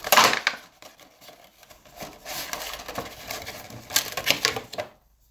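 Cardboard Funko Pop box being opened and its clear plastic insert pulled out: rustling and crackling of card and plastic in about three bursts, the loudest at the start.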